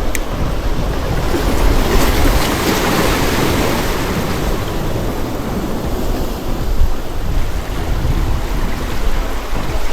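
Sea waves washing onto the shore: a surge swells about two seconds in and fades over the next few seconds, with wind rumbling on the microphone.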